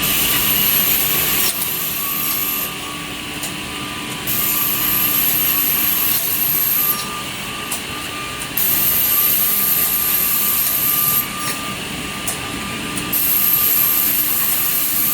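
Blue Elephant 45SG edge banding machine running with a steady mechanical hum. A louder, higher-pitched cutting sound comes and goes four times.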